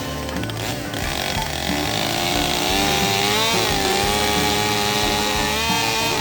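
Gas chainsaw engine running hard while cutting wood, its pitch wavering and dipping up and down with the load.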